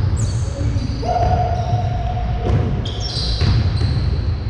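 Basketball game sounds on a hardwood court: the ball bouncing on the floor and short, high-pitched sneaker squeaks, over a steady low rumble.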